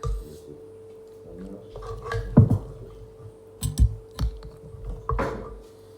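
Eating sounds up close: chewing, with several short clinks and knocks of utensils against dishes, over a steady faint hum.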